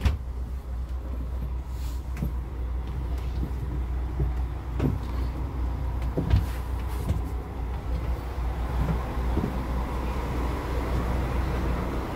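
Double-decker coach's engine running with a steady low rumble, heard from inside the bus, with a few scattered knocks and clunks.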